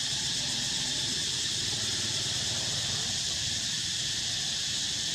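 Steady high-pitched drone of an insect chorus, continuous and unchanging, over a faint low hum.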